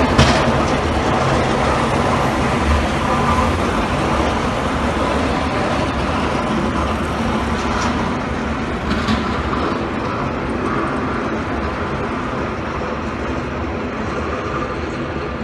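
Heavy sanitation trucks clearing a snowy street, their engines a steady low rumble. A brief sharp noise comes just after the start and another about nine seconds in.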